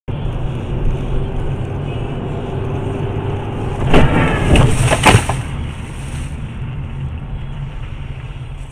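Car cabin rumble of engine and tyres on the road, broken about four seconds in by a loud bang and a second of scraping and knocking, with a last sharp bang just after five seconds. This is a side-swipe collision with another car.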